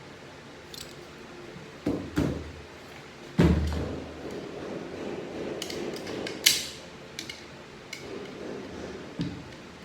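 Metal parts of a 6HP21 automatic transmission being handled during teardown: a scatter of knocks and clicks, the heaviest knock about three and a half seconds in and a sharp clink a few seconds later.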